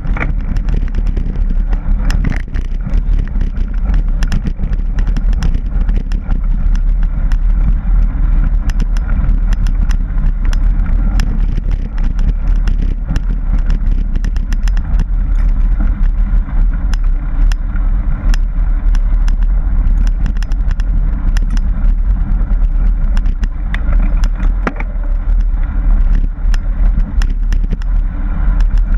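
Mountain bike riding fast over a dirt trail, heard from a camera mounted on the bike: a loud, steady rumble of tyres and wind on the microphone, with constant small rattles and clicks as the bike jolts over rough ground.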